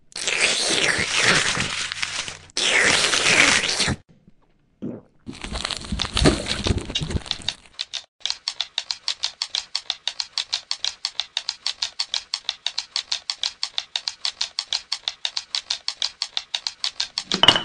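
Crunching, tearing noises in three bursts, then a fast, even clicking that keeps going.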